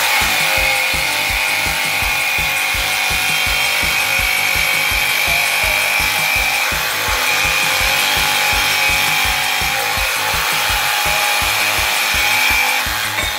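DeWALT XR cordless jigsaw with a Lenox bimetal metal-cutting blade sawing through a thick steel channel: a steady, loud, high-pitched rasping cut that stops just before the end.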